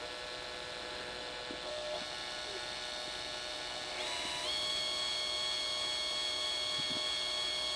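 Cordless drill running at low speed as a steady whine, spinning a small workpiece on a mandrel while CA glue is applied to it. Its pitch steps up twice about four seconds in as the trigger is squeezed for more speed.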